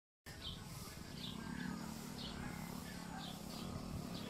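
A bird chirping over and over, short high calls about twice a second. A low steady hum sits underneath from about a second in, and the sound drops out briefly at the very start.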